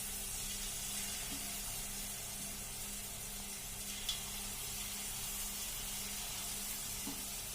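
Marinated, batter-coated chicken pieces frying in hot refined oil in a kadai: a steady sizzling hiss, with a small click about four seconds in.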